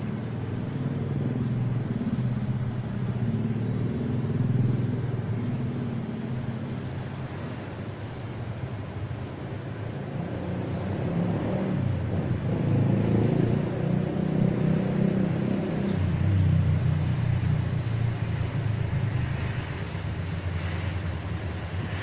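Steady low rumble of motor vehicle traffic, louder in the second half, with the engine note dropping about three quarters of the way through.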